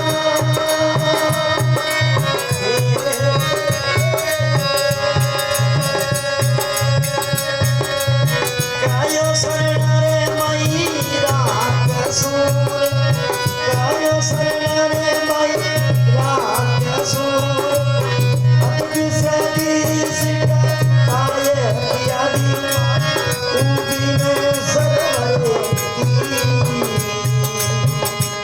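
Instrumental accompaniment of a Rajasthani folk bhajan, with long held melodic notes over a steady, continuous percussion rhythm.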